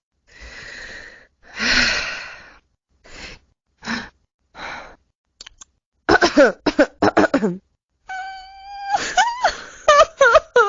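Loquendo TTS 'Zeynep' synthetic female voice playing a string of separate non-verbal vocal effects. It starts with breathy gasp- and sigh-like exhalations and short breaths, then moves to voiced sounds: a held tone about eight seconds in, followed by quick wavering cries near the end.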